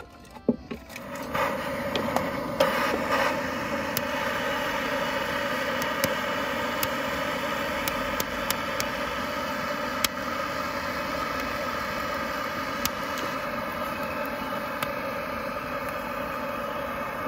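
Handheld gas blowtorch burning with a steady hiss as it is held to split kindling, switched on about a second in. Occasional sharp pops and crackles as the wood starts to catch.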